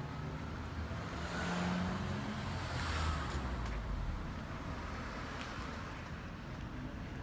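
A car driving past, its tyre and engine noise swelling to a peak about three seconds in and then fading.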